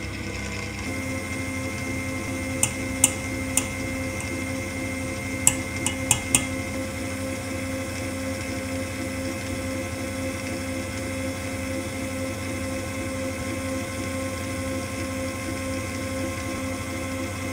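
Stand mixer motor running steadily, its balloon whisk beating egg whites into meringue in a stainless steel bowl. A few sharp clicks come between about 2 and 6 seconds in.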